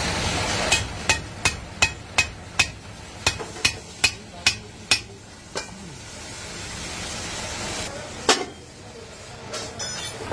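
Hammer blows on an aluminium cooking pan held over a steel stake, fixing its ring handle: a quick run of about a dozen sharp metallic strikes, roughly three a second, then two more spaced-out blows, the last one the loudest.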